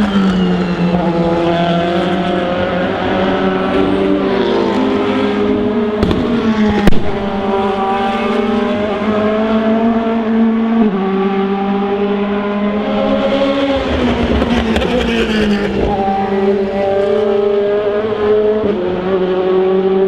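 4.0-litre V8 DTM race cars running, several engines heard together, their pitch repeatedly dropping and then holding. One sharp, loud backfire bang about seven seconds in.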